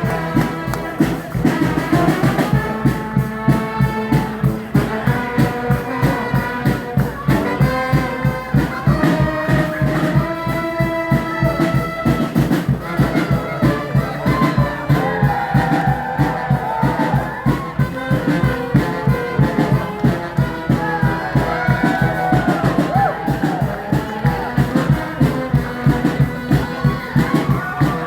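Live street brass band playing: horns holding and sliding between notes over a steady, regular drum beat.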